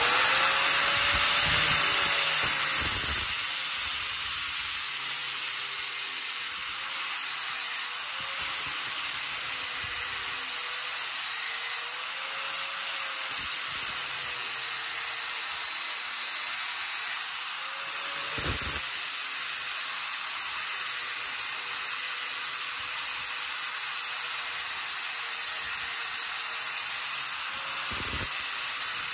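Angle grinder with a metal blending disc running continuously as it grinds a cope into a hollow plastic quarter round, its steady whine dipping briefly in pitch now and then as the disc bites.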